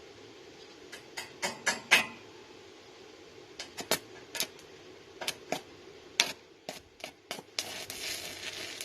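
Stick welding with a 1/8-inch 7018 electrode on a small inverter welder: a run of sharp separate pops and ticks as the rod is struck against the work, then about seven and a half seconds in the arc catches and settles into a steady crackle.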